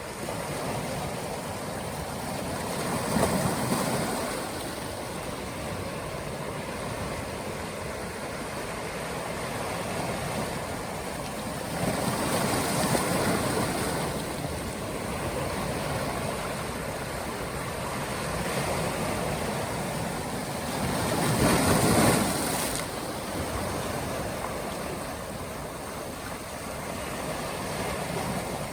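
Ocean waves washing in a steady rush of surf, swelling into three louder breaks: about three seconds in, near the middle, and about three-quarters through.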